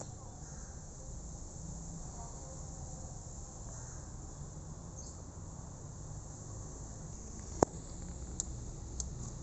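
Steady high-pitched insect chirring, with one sharp click a little past seven seconds and two fainter ticks after it.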